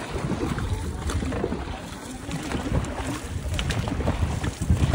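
Wind buffeting the microphone aboard a dragon boat on open water, over a steady rush of water, with scattered light knocks.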